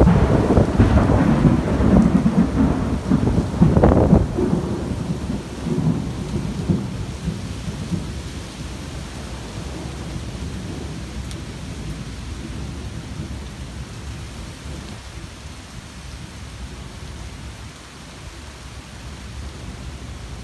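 A close thunderclap that breaks out suddenly and crackles and rumbles for about four seconds, with a second sharp peak about four seconds in, then a low rumble that fades over the next several seconds. Steady rain goes on underneath.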